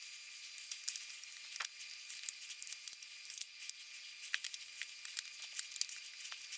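Plastic base plate of a Lenovo 11S laptop being pressed on, its clips snapping into place: a run of small, irregular clicks and crackles, a few sharper than the rest.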